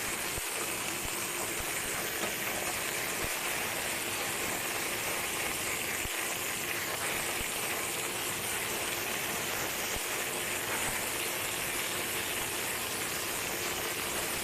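Baby bok choy sizzling steadily in smoking-hot oil in a shallow pan as it flash fries.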